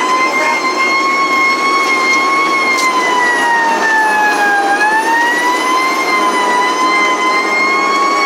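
Fire apparatus siren wailing, heard from inside the cab: one loud steady tone that slowly sags and climbs back, dipping once about four and a half seconds in. The truck's running noise sits under it.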